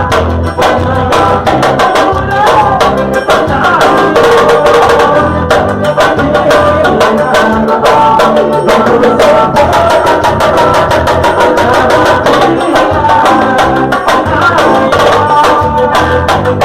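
Loud music with percussion: drums played in a dense, fast, steady rhythm over heavy bass and a melodic line.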